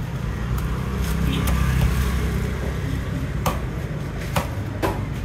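A steady low rumble that swells between about one and three seconds in, with a few sharp knocks in the second half.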